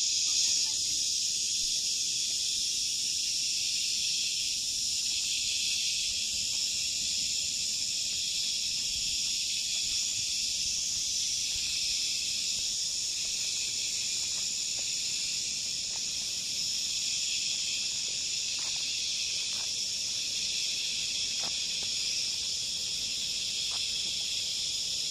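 Steady, dense insect chorus, a continuous high-pitched drone. A few faint short chirps come in during the second half.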